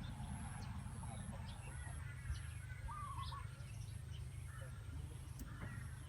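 A vehicle engine running steadily with a low rumble, with short bird chirps now and then.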